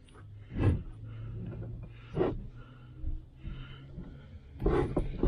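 A bucket seat being handled and shifted into place in a car, with dull thumps and scraping as it knocks against the interior; three heavier knocks come roughly a second and a half apart, the last near the end.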